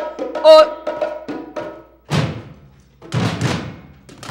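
Music starting: a voice singing held notes, then two heavy hand-drum strokes about two seconds in and again a second later.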